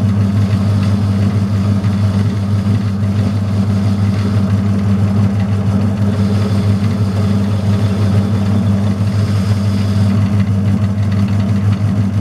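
Metalworking lathe running, turning a shaft between centres, with a strong steady hum from its electric motor. It is switched off near the end and begins to run down.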